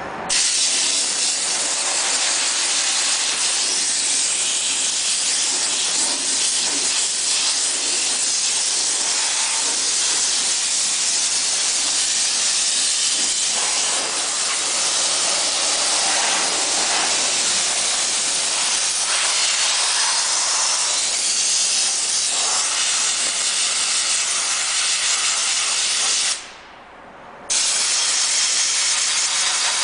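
High-pressure steam cleaner's wand blasting a steady, loud hiss of steam onto a vehicle's paint. The jet cuts off for about a second near the end, then starts again.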